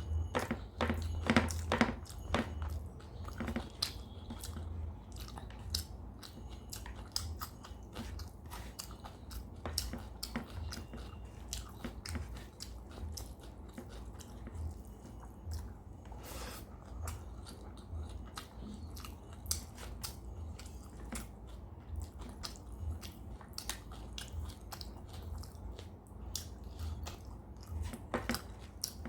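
Close-miked eating: chewing and biting of a rice-and-curry meal, with many small wet mouth clicks, loudest in the first few seconds.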